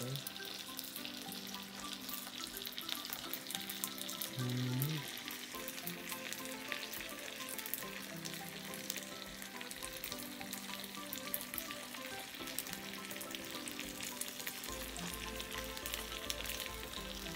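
Hot fat and juices sizzling and crackling steadily, with dense fine pops, from a freshly roasted chicken. Soft background music with held low notes plays underneath.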